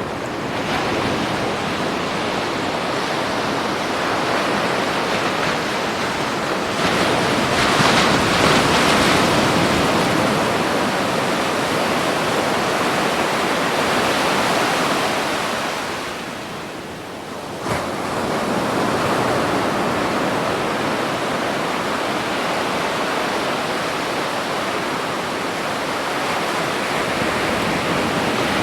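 Ocean surf breaking on a beach: a continuous wash of waves that swells louder about seven seconds in, eases to a lull around sixteen seconds, then comes back with a sudden crash near eighteen seconds.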